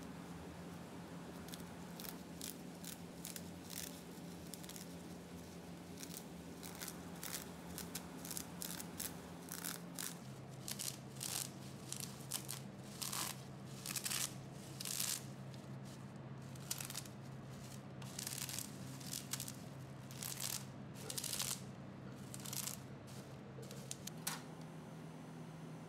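Plastic bubble wrap crinkling and crackling as it is peeled off a sheet of set chocolate, in short crackles that come thicker and faster from about halfway through.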